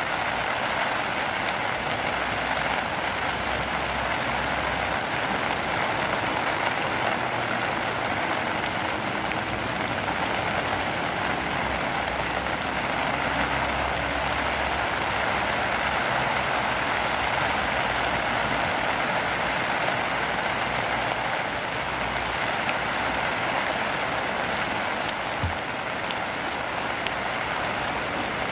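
Steady rain falling: an even, unbroken hiss with scattered ticks of individual drops.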